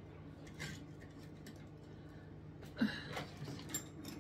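Faint rustling and light clicks of paper and plastic packaging being rummaged through by hand.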